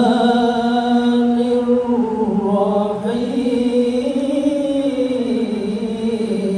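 A solo voice chanting Qur'anic recitation in the melodic tilawah style. It holds long notes that bend slowly up and down in one drawn-out phrase.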